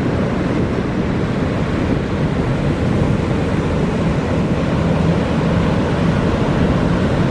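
Surf breaking and wind on the microphone, with the steady hum of a ski-boat's outboard motors running as it punches out through the waves.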